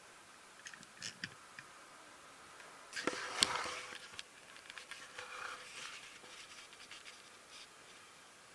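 Quiet handling sounds of a small object being moved: a few light clicks about a second in, then a louder scrape with a sharp click around the middle, followed by softer rustling and scraping.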